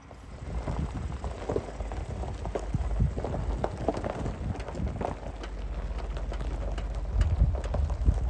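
Wind buffeting an outdoor microphone: a steady low rumble with irregular crackling on top.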